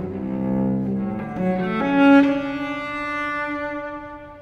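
Solo cello played with the bow in slow, sustained notes. About two seconds in, a higher note begins and is held, fading out near the end.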